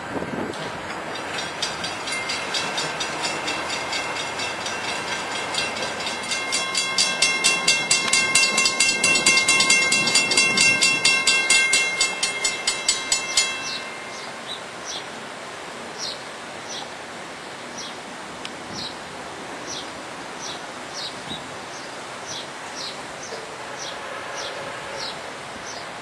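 Railroad grade-crossing bell ringing rapidly over the noise of a passing freight train, growing louder, then cut off abruptly about halfway through. After that a crossing bell dings more slowly and evenly while a Florida East Coast freight approaches, and a locomotive horn starts faintly near the end.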